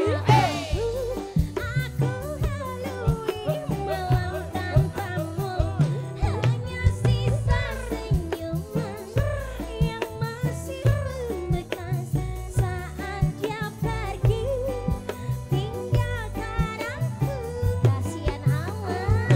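Live dangdut band music: a steady drum beat under a winding melody line.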